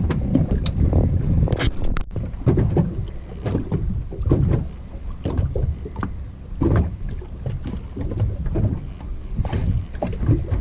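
Wind buffeting the microphone and small waves slapping against a boat's hull, an uneven low rumble that rises and falls, with scattered sharp clicks and knocks.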